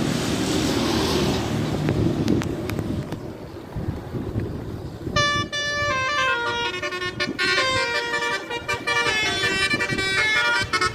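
Bus telolet horn, a Basuri multi-tone air horn, playing a melody of quick stepped notes that starts about five seconds in and runs on. Before it, a steady rumble of vehicle noise.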